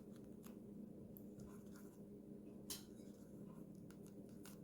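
Near silence: a few faint clicks and light rustles of hands wrapping bananas in spring roll wrappers, over a low steady hum.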